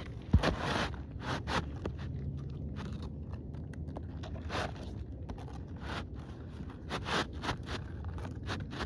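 Asphalt roof shingles scraping and crunching as they are worked by hand during a shingle repair, in irregular short strokes, with one sharp knock about half a second in.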